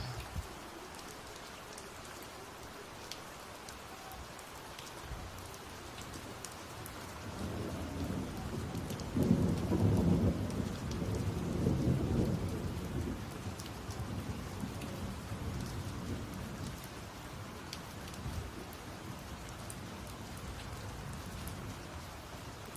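Steady rain falling, with scattered drops ticking, and a roll of thunder that builds about a third of the way in, rumbles loudest for a few seconds and fades away.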